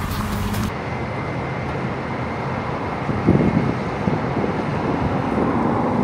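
Steady road-traffic rumble, with wind buffeting the microphone from about three seconds in.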